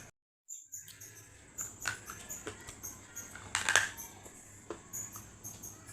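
Close-miked crunchy eating: irregular crisp crackles and snaps as something crunchy is bitten and chewed, loudest in a cluster a little past halfway. A brief silent gap comes near the start.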